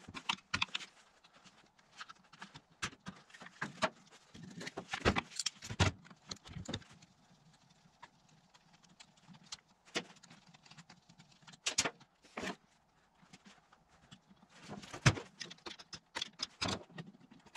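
Irregular clicks, taps and light clatter of a screwdriver and plastic parts as the air filter cover and carburetor are taken off a Stihl FS55 string trimmer.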